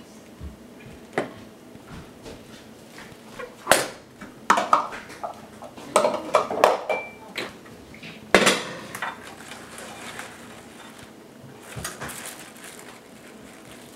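Irregular knocks and clatters of a plastic mixing bowl on the stovetop as bunches of Egyptian onion stalks are handled in it.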